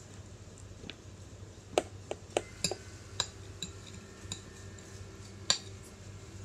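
A metal fork clinking and tapping against a plastic plate as a child picks up pasta: about eight irregular clinks, the loudest about two seconds in and again near the end.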